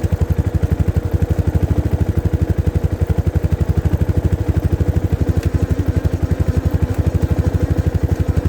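Motorcycle engine idling with a steady, even pulse of about nine beats a second, while the rear brake is applied to bring out the noise of pads that have not bedded in.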